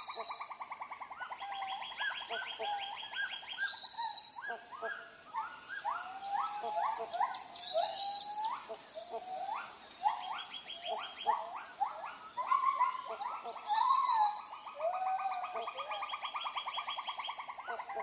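Tropical rainforest chorus of many animals calling at once: rapid pulsed trills keep going under many short, sharply rising calls and whistles.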